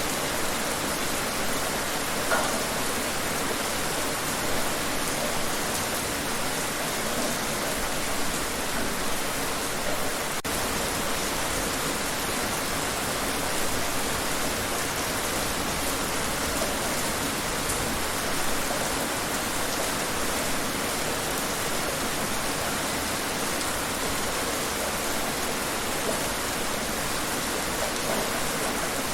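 Steady rain falling outdoors, an even hiss of rainfall with faint individual drops on surfaces.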